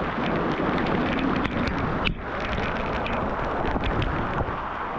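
Steady rushing of falling water from a waterfall, an even dense noise that dips briefly about two seconds in.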